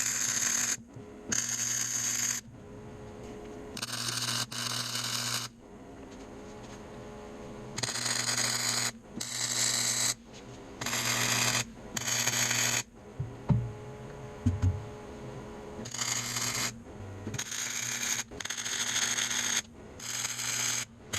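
Arc welder laying short tack welds on steel mounts: about a dozen separate bursts of crackling hiss, each about a second long, with the welder's steady hum under them. A few dull knocks come around the middle.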